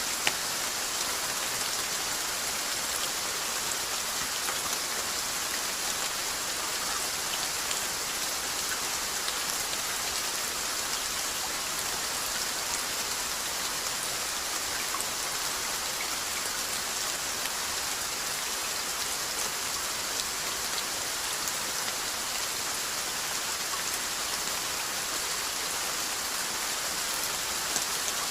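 Steady rainfall, a continuous even hiss with fine drops pattering on a surface.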